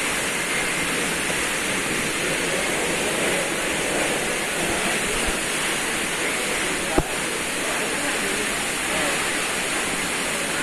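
Waterfall: a steady rush of falling water that does not let up, with one short knock about seven seconds in.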